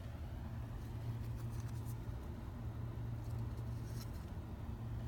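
Trading cards being handled and flipped through, a few faint soft flicks, over a steady low hum.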